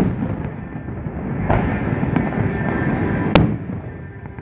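Aerial fireworks shells bursting: a continuous low rumble of explosions, with a small crack about one and a half seconds in and a sharp, loud bang about three and a half seconds in.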